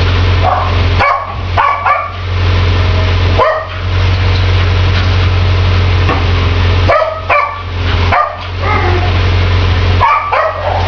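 A dog yipping and barking in short bursts, several times, over a loud steady hum and hiss.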